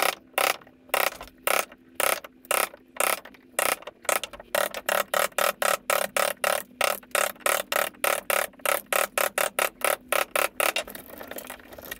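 Claw hammer striking a chisel again and again, chopping a relief notch into a wooden board. The blows come steadily, about three a second, then quicken to four or five a second, and stop shortly before the end.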